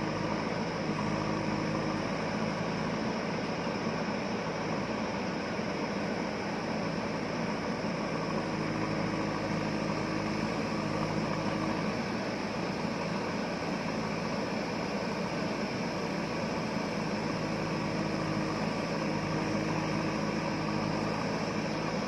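JCB 3DX backhoe loader's diesel engine running steadily under load as the backhoe arm digs into the hillside. A faint low hum comes in twice for a few seconds.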